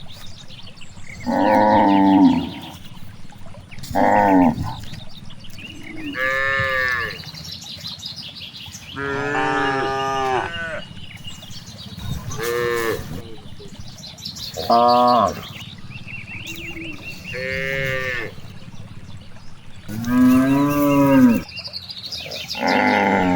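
Cattle mooing again and again: about ten separate calls of half a second to a second and a half each, some low and some higher-pitched.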